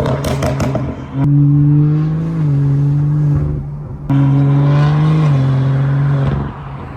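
BMW 335i's N55 turbocharged straight-six held at steady high revs twice, each time for about two seconds, with the pitch stepping down slightly partway through before the revs drop away.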